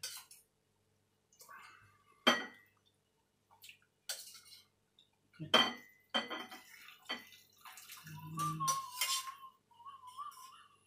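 A metal spoon clinks against a stainless steel saucepan while soup is spooned and poured from it into a bowl. There are several separate clinks: the loudest about two seconds in, and a quicker cluster in the second half.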